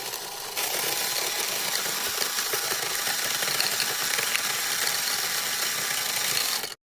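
Washing machine running fast: a steady mechanical noise that gets louder about half a second in and cuts off suddenly near the end.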